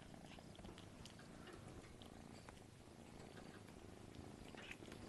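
Faint purring of a sick tabby kitten, with a few faint ticks.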